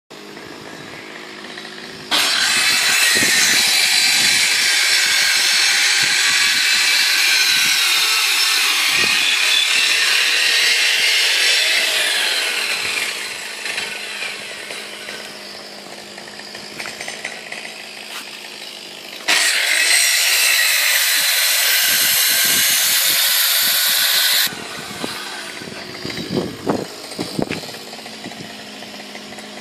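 Jawa 50 type 23 Mustang moped's air-cooled single-cylinder 50 cc two-stroke engine running on its stand: idling, then revved and held high twice for several seconds each, from about two seconds in and again from about nineteen seconds in, dropping back to idle each time, with a few quick throttle blips near the end.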